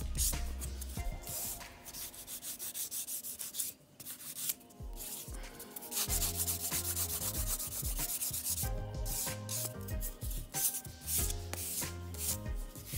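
Pink buffer block rubbed quickly back and forth over a sculpted acrylic stiletto nail, buffing out the marks left by the file so the surface is smooth. The strokes pause briefly a little under four seconds in.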